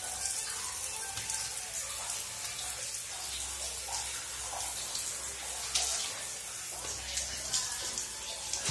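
A stream of water pouring onto a dog's head and splashing off its fur onto a concrete floor during a bath, a steady splashing hiss.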